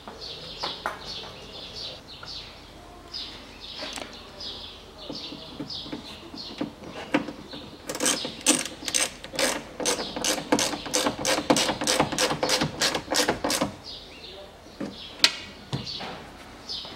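Hand ratchet clicking steadily, about four clicks a second, for some five seconds from about halfway in, as the screw holding the door's window glass guide is tightened. A few single knocks of metal on the door panel come before and after.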